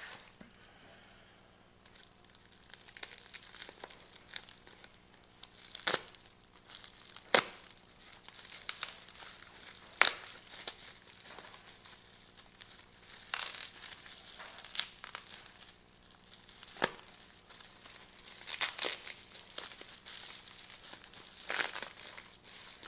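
Packaging being handled and unwrapped, with irregular crinkling and rustling broken by a few sharp clicks and knocks of small hard parts.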